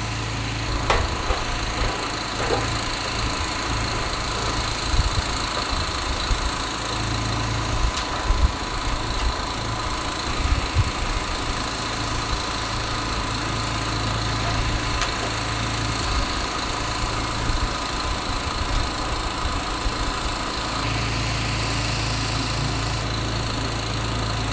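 A steady low mechanical hum, like a motor or fan running, with a few light clicks and knocks from parts being handled.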